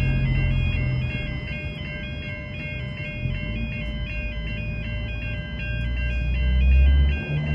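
Electronic level crossing warning bell sounding a repeating two-tone chime about twice a second, with a low rumble underneath that builds and then drops away near the end.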